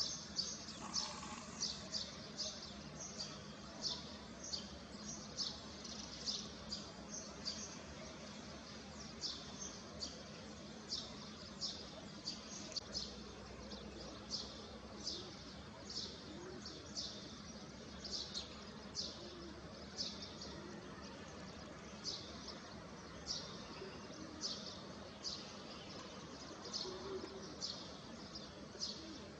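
A small bird chirping over and over: short, high chirps about every half second, sometimes in quick pairs, over faint steady background noise.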